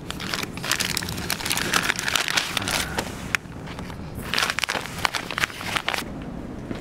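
Crinkling and rustling as packaging or gear is handled, with many small clicks, dying down about six seconds in.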